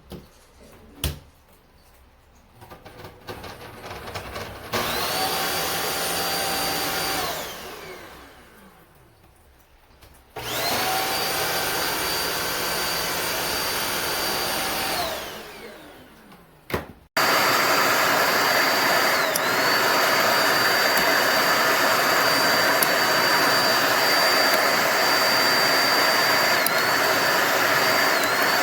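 Eureka Flash corded stick vacuum's motor switched on twice, each time running with a high whine for a few seconds before spinning down. On the third start it keeps running steadily, its pitch dipping briefly now and then, after a few clicks at the very start.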